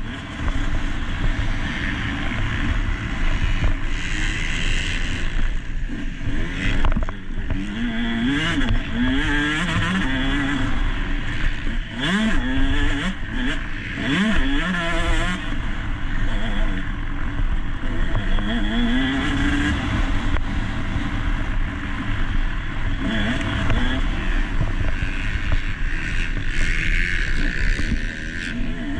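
Motocross dirt bike engine heard from an onboard GoPro, its pitch climbing and dropping again and again as the throttle is opened and closed, with heavy wind and track noise on the microphone.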